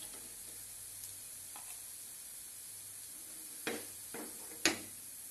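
Oil sizzling faintly in an appam pan while a metal spoon lifts cooked semolina balls out of its cavities, with a few clicks and scrapes of the spoon on the pan, the loudest near the end.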